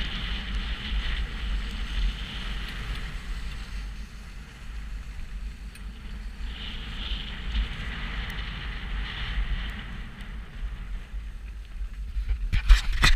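Wind rumbling on a GoPro action camera's microphone while skiing, with the hiss of skis on groomed snow swelling and fading. Near the end the run stops and a quick series of sharp clicks and scrapes comes in.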